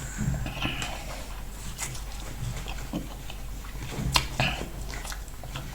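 Close-miked eating sounds: chewing of corn starch fufu and soup, with a few sharp wet mouth clicks.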